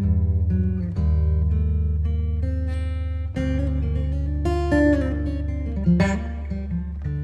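Background music led by plucked and strummed guitar over a steady low bass, the notes changing about once a second.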